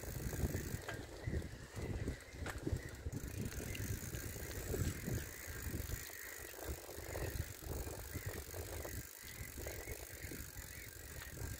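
Bicycle being ridden: an uneven low rumble that rises and falls, with scattered light clicks and rattles from the bike.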